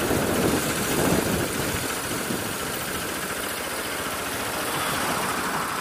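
Bajaj Pulsar RS200's single-cylinder engine idling steadily, heard from the rider's helmet.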